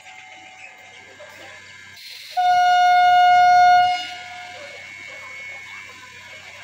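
An ICF three-phase Medha EMU local train running past, with one steady blast of its horn, about a second and a half long, starting a little over two seconds in.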